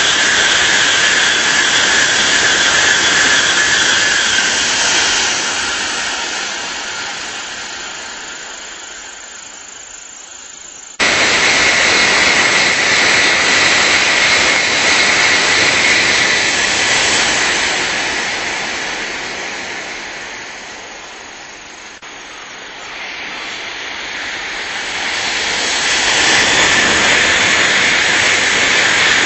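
Tokaido Shinkansen bullet trains passing at speed: a loud rushing noise with a high steady whine that fades away. About eleven seconds in the sound jumps suddenly back to full loudness as another train passes and fades, then the rushing builds up again near the end as a further train comes by.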